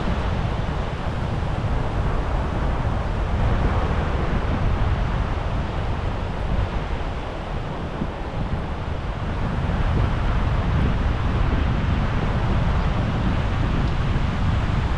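Wind buffeting the microphone over the steady wash of surf breaking on a sandy beach, easing briefly about halfway through.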